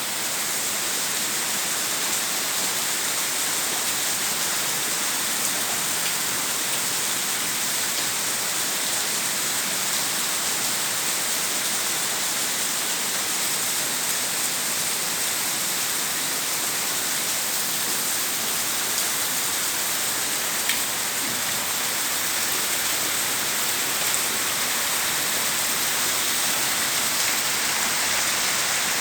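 Heavy rain falling and splashing on surfaces, a steady dense hiss with a few sharper drips here and there.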